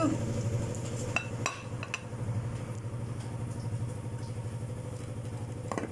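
A small engine idling steadily with a fast, even low pulse, with a few light clicks over it.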